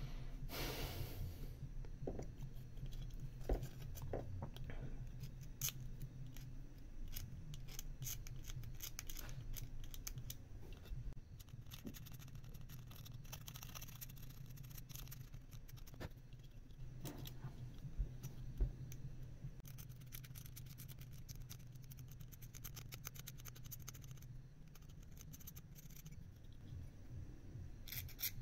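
The tip of a metal hand tool scraping and scratching at the solder side of a circuit board in short, irregular strokes, over a low steady hum.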